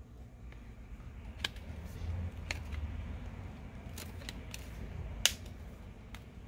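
Google Pixel phone's housing clips snapping into place as the frame is squeezed together by hand: a series of sharp separate clicks, the loudest about five seconds in, over low handling rustle.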